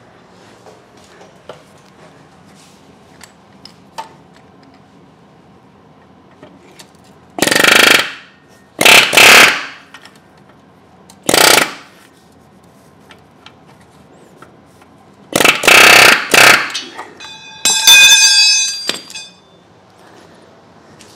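Air-powered tool, most likely an air impact wrench, fed by a shop air hose, run in about five loud bursts of one to two seconds starting some seven seconds in. The last burst carries a high ringing whine.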